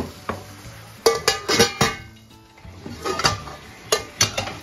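Sharp clinks and knocks against a steel cooking pot as burger patties are put in, in two bunches of quick strokes with a short pause between them.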